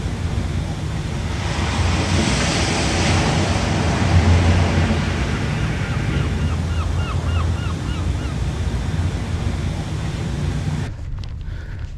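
Sea surf washing on the shore with wind buffeting the microphone, the surf swelling a couple of seconds in. A quick series of about eight short, repeated chirps comes in the middle. The surf sound cuts off abruptly near the end.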